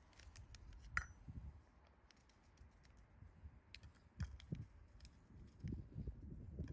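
Metal spoon scooping baking powder out of a paper packet into a small plastic cup: quiet, scattered clicks, scrapes and soft taps, with a sharper click about a second in.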